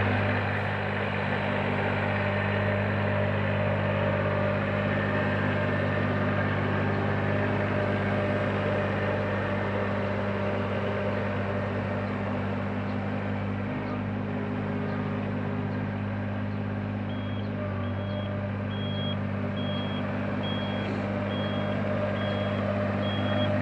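Ride-on roller's engine running steadily at close range. Its reversing alarm beeps repeatedly, a little under two beeps a second, in the last several seconds.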